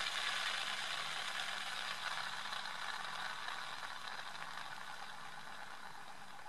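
Hand-held wooden fidget spinner whirring on its degreased 22 mm sealed bearing: a soft, steady hiss that slowly fades as the spin winds down.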